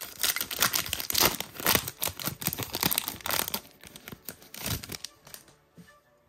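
Foil Goddess Story NS11 booster pack being torn open and crinkled by hand: a dense, irregular crackle of the wrapper that dies away about five seconds in.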